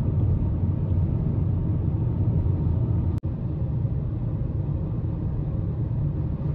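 Steady low rumble of road and engine noise inside a car cruising at highway speed. It cuts out for an instant about three seconds in, then resumes.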